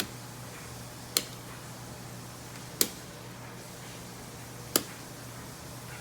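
Wall light switch clicking: three sharp clicks about a second and a half to two seconds apart, over a steady low hum.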